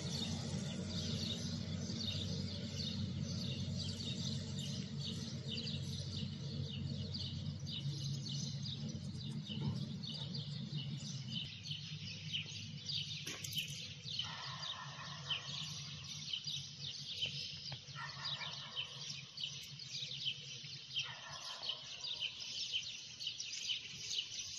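Many small birds chirping rapidly and continuously, with a steady low hum underneath and a few longer calls in the second half.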